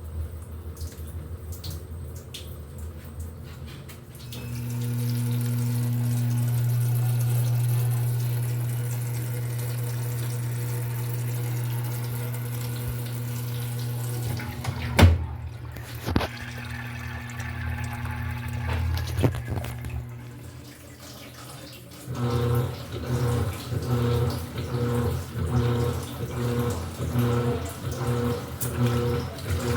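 Electrolux LED14 14 kg washing machine filling with water: water running in over a steady hum, with a sharp click about 15 seconds in. From about 22 seconds in, a regular pulsing beat starts, a little over one pulse a second.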